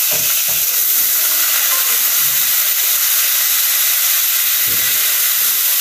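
Diced potatoes, onion and whole spices sizzling in hot oil in a metal kadai, a loud steady hiss, while a ladle stirs them, with a few low bumps.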